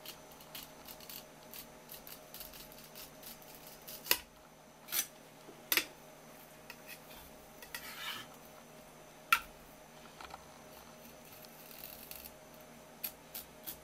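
Kitchen knife working on a wooden cutting board while filleting a pike conger: scattered light clicks and scrapes of the blade, with a few sharper knocks and a brief scraping stretch near the middle.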